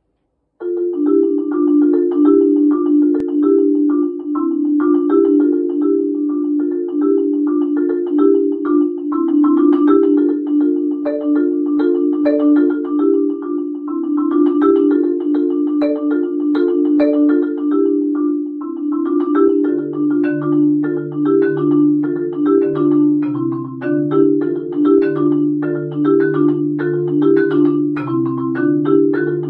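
Solo LV1200FC marimba played with four mallets: a fast, repeating pattern of notes in the middle register starts about half a second in, and low bass notes join it about two-thirds of the way through.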